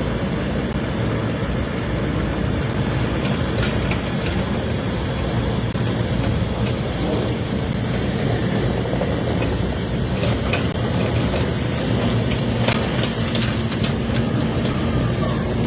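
Steady rumble of heavy diesel machinery, lorries and diggers working and moving soil, with a low hum and a few scattered clicks and knocks in the second half.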